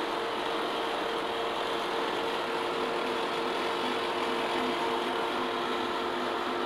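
Lucas horizontal boring mill running steadily under power feed, turning a 2-inch twist drill into thick steel plate: an even machine hum with a few constant tones.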